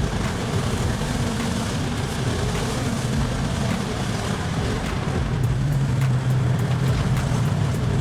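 Front shovel excavator working, its engine running as a steady, heavy mechanical rumble with a low hum that grows stronger about five and a half seconds in.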